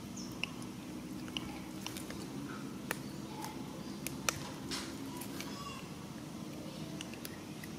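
Scattered sharp clicks and crunches of macaques chewing food, over a steady low hum, with a few short high chirps.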